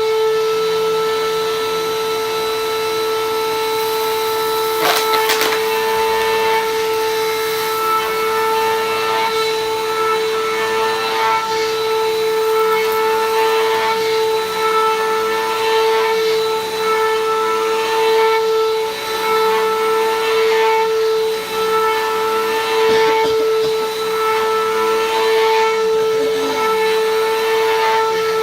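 Vacuum cleaner running steadily on a rug, its motor giving a constant high-pitched whine, with a sharp knock about five seconds in and a few fainter ones later.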